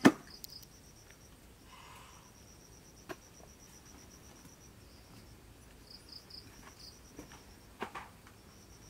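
Insects chirping in a fast, even pulsing, with a sharp knock right at the start and a few lighter knocks around 3 and 8 seconds in.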